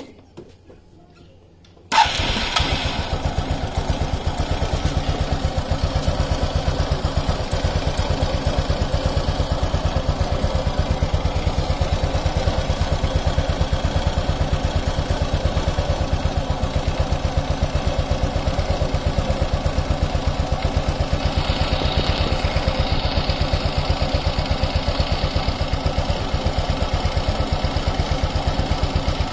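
Suzuki Access 125 scooter's single-cylinder four-stroke engine starts about two seconds in and settles into a steady, evenly pulsing idle. Its oil has just been dosed with MoS2 (molybdenum disulphide) additive, and the owner finds the engine a bit on the quieter side.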